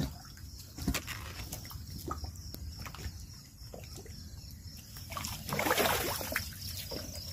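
Water sloshing as a bucket is hauled up from a well and emptied into a water can, with a louder rush of pouring lasting about a second, a little after five seconds in. Light knocks of the bucket and can come and go.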